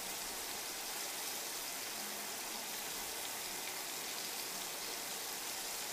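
Lamb chops sizzling steadily in hot olive oil and butter in a cast iron skillet: an even frying hiss.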